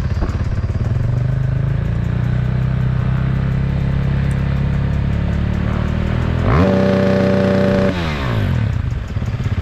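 Off-road motorcycle engine running at low revs, then revved up quickly about six and a half seconds in and held at a steady high rpm for just over a second before dropping back. This is the rev-and-hold of a noise-level test at technical inspection.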